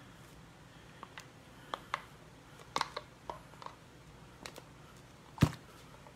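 Capped plastic water bottle handled in the hands: scattered small clicks and crackles, then one sharp knock about five seconds in.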